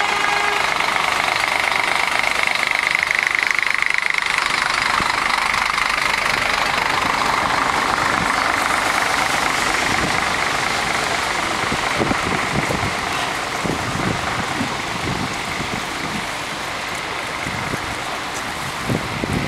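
Road traffic on a wet street: a coach's engine and the hiss of passing vehicles, strongest in the first few seconds. In the second half wind gusts buffet the microphone in irregular low thumps.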